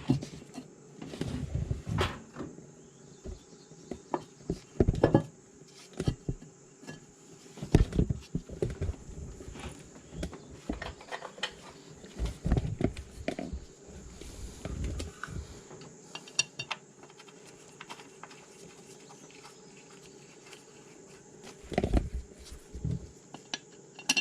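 Hands and tools working on an excavator's light cover and housing: irregular clicks, taps and knocks of hard parts being handled and fitted. They come thick for the first half, thin out after about 16 seconds, then return as a short cluster of knocks near the end.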